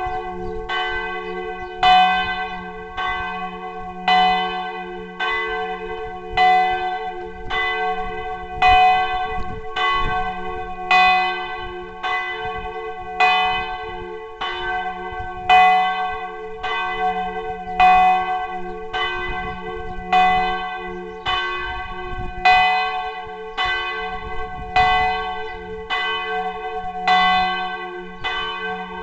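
Large church bell (campanone), computer-driven, rung a distesa: swinging full so that its clapper strikes about once a second, strokes alternating louder and softer, over a low hum that rings on without a break.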